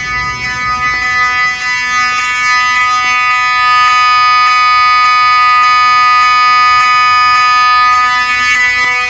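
Wheelock 7002T 12-volt fire alarm horn strobe sounding a continuous, steady electronic horn tone, getting a little louder about three seconds in.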